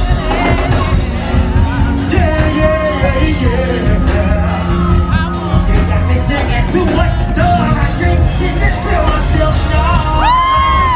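Live concert music heard from within the audience: a band with keyboards and heavy bass under a singer on microphone, with audience members yelling. Near the end a loud voice rises and holds a note.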